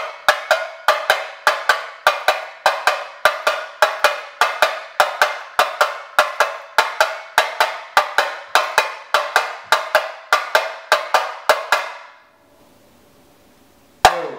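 RMV tamborim struck with a stick, playing the basic Rio samba pattern: a steady, repeating rhythm of sharp, bright hits, about three to four a second. The playing stops about twelve seconds in and starts again just before the end.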